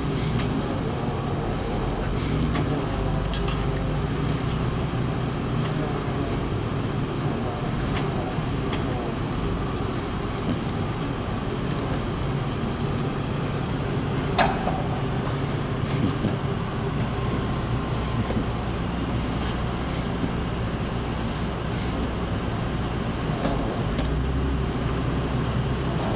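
Tow truck's engine running steadily as a low, even rumble while the truck backs up to a car and lifts it. A single sharp click sounds about fourteen seconds in.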